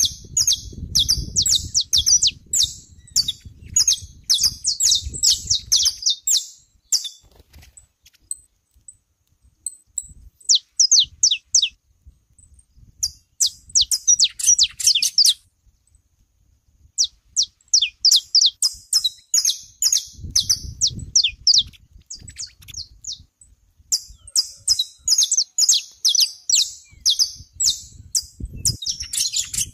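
Saffron finches chirping and singing in bouts of rapid, sharp, high notes, with short pauses between bouts. A low rumble sits underneath at the start and again about two-thirds of the way through.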